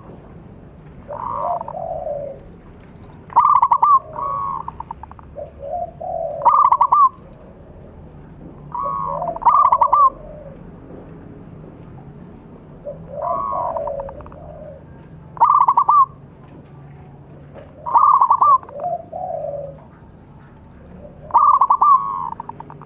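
Zebra dove (perkutut) singing its cooing song: a phrase every two to three seconds, each a fast stuttering run of notes followed by lower rolling coos.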